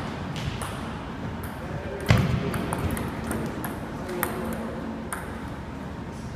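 Table tennis ball clicking against paddles and the table in play, about ten sharp ticks at an uneven pace, with a heavier knock about two seconds in.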